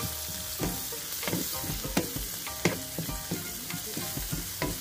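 Minced shallots, garlic and ginger sizzling in hot oil as they fry golden, stirred in the pan with repeated short scraping clicks.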